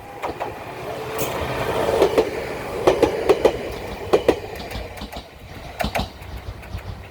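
Two-car Bessho Line 1000 series electric train running past, its wheels clacking over rail joints in quick clusters of knocks. The running noise swells to its loudest two to three seconds in, then eases.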